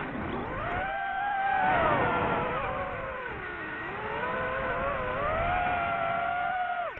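DJI FPV drone's motors and propellers whining, the pitch swinging with the throttle. It falls sharply at the start, climbs, sags to a low about three and a half seconds in, rises again, and falls sharply at the end.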